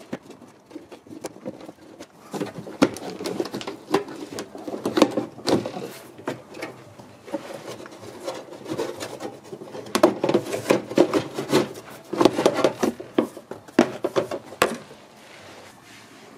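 Hard plastic undertray and compressor cover being worked loose by hand: irregular rubbing and scraping with sharp plastic clicks and snaps, in two busy spells, stopping shortly before the end.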